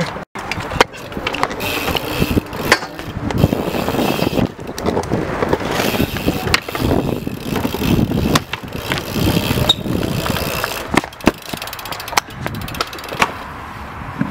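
BMX bikes riding on concrete: tyres rolling, with several sharp clanks and thuds as the bikes land and hit a wooden box.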